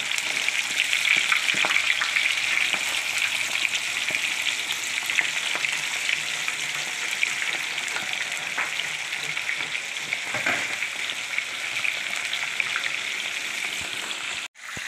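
Batter-coated chicken pieces deep-frying in hot oil in an iron kadai: a steady sizzle with fine crackling. The sound drops out for a moment near the end.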